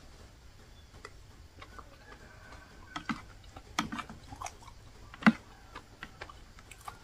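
A person eating with the mouth close to the microphone: irregular soft chewing clicks and smacks. A sharper click comes a little past five seconds in, as the metal spoon goes back into the ceramic bowl.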